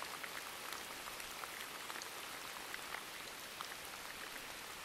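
Steady rain: an even hiss with many scattered drops ticking.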